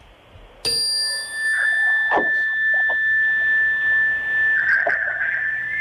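A sudden ding-like onset less than a second in, then a loud, steady, high-pitched electronic tone that holds on, over faint line hiss, with brief crackles of interference.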